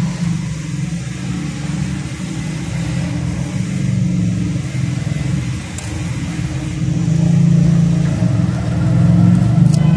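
Steady low hum of a running engine, getting louder over the last three seconds.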